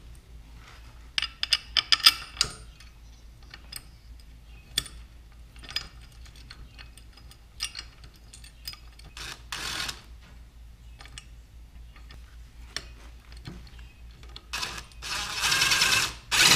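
Socket wrench ratcheting on a bolt in a spell of rapid clicking near the end, with scattered metal clinks and taps of bolts and tools before it.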